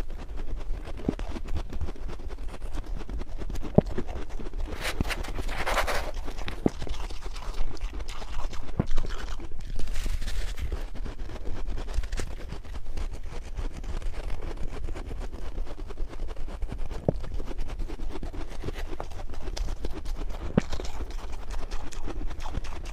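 Freezer frost being bitten and chewed close to a lapel microphone: soft crunching with many scattered sharp clicks over a low steady hum, and a brief louder scraping rush about five seconds in.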